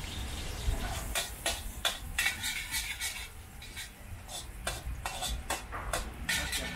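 Metal spatula scraping and clinking against a metal wok during stir-frying, in irregular strokes with a short metallic ring. There is a lull in the strokes about three to four seconds in.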